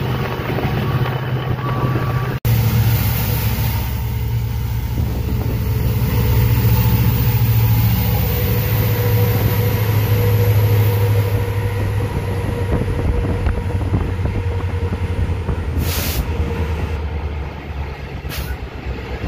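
Diesel-electric locomotive heard from inside the cab while it runs at speed: a steady low engine drone under the rumble of wheels on the rails. The sound cuts out for an instant about two seconds in, and two short sharp clicks come near the end.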